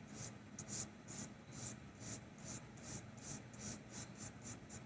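A drawing pencil shading rapidly back and forth on paper, scratching in short, even strokes at about four to five a second.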